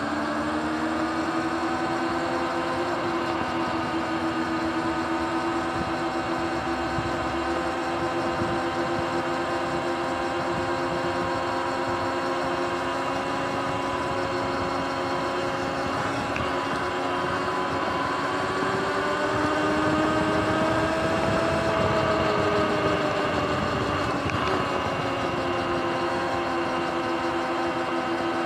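Sur-Ron electric dirt bike's motor and drivetrain whining steadily while cruising along a street. Partway through, the whine climbs in pitch as the bike speeds up, then drops back as it eases off.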